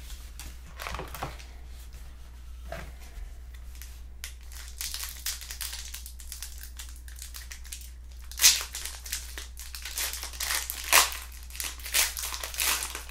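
Wrapper of a trading card pack crinkling and crackling as it is handled and worked open, with scattered crackles at first and louder, busier crinkling through the last five seconds.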